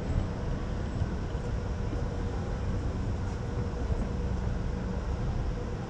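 Escalator running, heard while riding it: a steady mechanical rumble with a faint steady hum.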